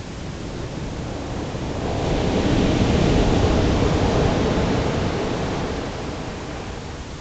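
Pacific surf: a steady rush of breaking waves, with one wave crashing and washing up the shore close by, swelling about two seconds in, peaking midway, then fading away.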